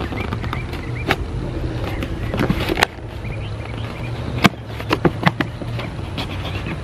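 A blade slitting the packing tape along a cardboard box's seam, with sharp clicks and knocks from the box being handled, over a steady low rumble.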